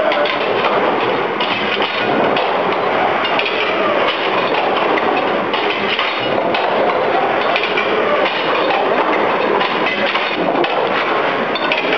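Replica Newcomen atmospheric steam pumping engine running, its self-acting valve gear a continuous clanking cacophony of metal knocks and clinks.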